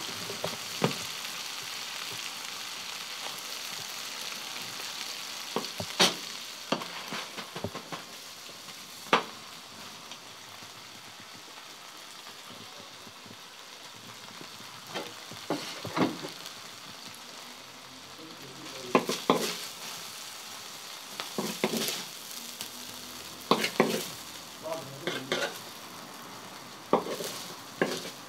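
Minced meat sizzling on a large steel tantuni griddle, a steady frying hiss, with scattered sharp clinks and scrapes of a metal spatula against the pan, coming more often in the second half.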